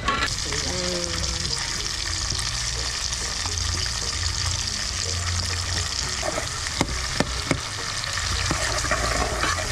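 Onion pieces sizzling steadily as they fry in red palm oil in an aluminium pot. A few short metal clicks against the pot come in the second half.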